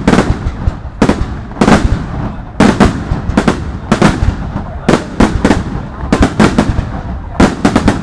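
New Year's Eve fireworks bursting in quick, irregular succession: sharp bangs about twice a second that come closer together near the end, over a continuous low rumble.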